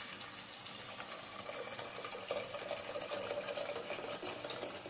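Hot water poured in a steady stream from a kettle into a pressure cooker holding brown rice, splashing onto the rice as the pot fills.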